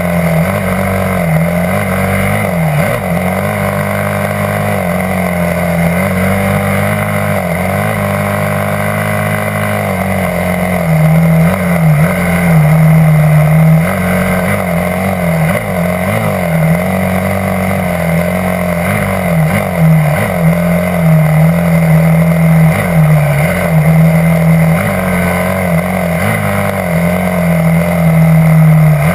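Yamaha YZ250F four-stroke single-cylinder dirt bike engine running under load, its pitch dipping and climbing again and again as the throttle is eased off and reopened. It gets louder about a third of the way in.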